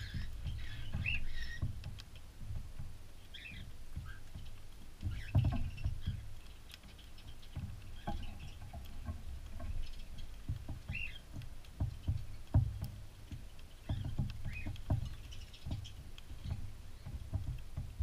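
Close rustling, scratching and soft bumps from cockatiels moving right against the microphone, with a few short chirps from cockatiels in the aviary.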